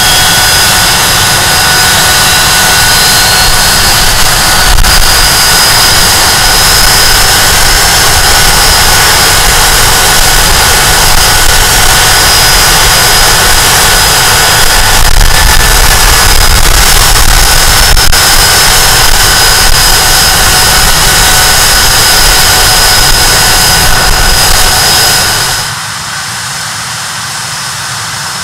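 Rolls-Royce Spey Mk 250 turbofan engines of a Hawker Siddeley Nimrod MR2 running on the ground: a steady loud rush with high whining tones. Near the end the sound drops noticeably in level.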